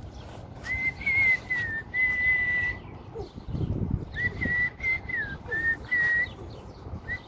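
A person whistling a simple tune in long, steady notes with small steps up and down in pitch, in two phrases with a short break about halfway through. A brief low rumble falls in that break.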